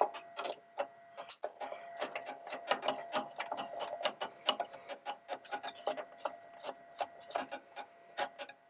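Screwdriver tightening a CPU heatsink's retaining screw: a run of quick, irregular clicks and ticks, several a second, over a faint steady hum.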